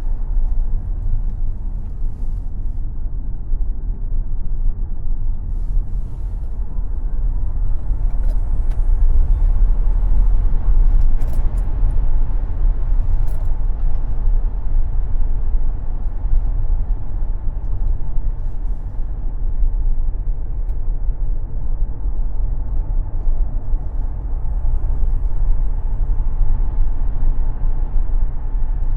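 Tesla Model X electric car driven at speed on a racetrack: a steady rumble of tyre and wind noise with a faint steady whine, getting a little louder around ten seconds in.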